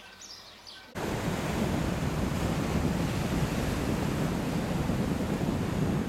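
A bird chirps faintly for about a second, then loud wind buffets the microphone over waves breaking on a rocky shore, starting suddenly and running on steadily.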